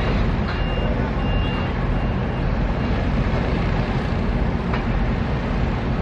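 Steady low rumble of heavy vehicles and machinery on a construction site, with two short high beeps of a reversing alarm about half a second and a second and a half in.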